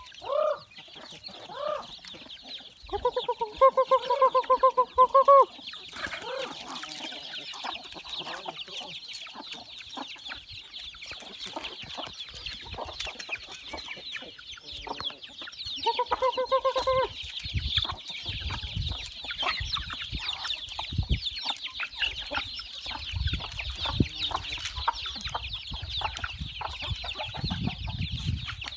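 Chickens clucking and calling, with a dense high-pitched chatter of many small calls throughout. Two loud, pulsed calls of about two seconds each stand out, one a few seconds in and one about halfway through.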